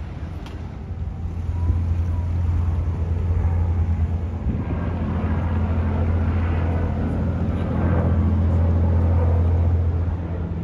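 A steady, low engine drone that grows louder about a second and a half in, with a rushing noise swelling in the middle and fading near the end.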